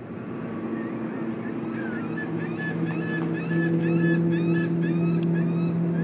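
A steady engine hum grows louder over the first few seconds. Over it, a bird calls in a quick run of short chirps, about four a second, through the middle.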